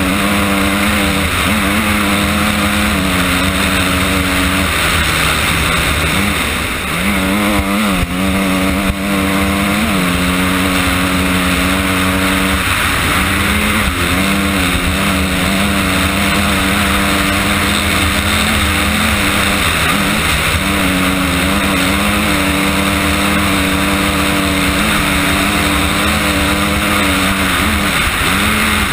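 Honda CRF250R dirt bike's single-cylinder four-stroke engine running hard under load, revs rising and falling with throttle and gear changes, with brief drops in revs a few times.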